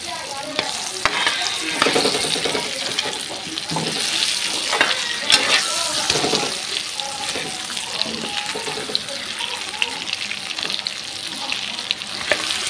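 A spoon stirring mango pieces in jaggery syrup in a metal kadhai, clinking and scraping against the pan now and then, over a steady sizzle of the cooking.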